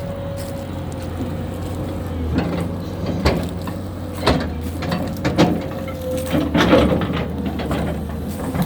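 Heavy machine's engine running steadily with a constant whine over it, with several sharp knocks and clanks in the middle of the stretch.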